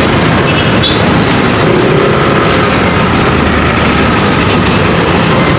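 Riding noise on a Yamaha scooter in city traffic: steady wind rush on the microphone over the scooter's engine and the surrounding traffic.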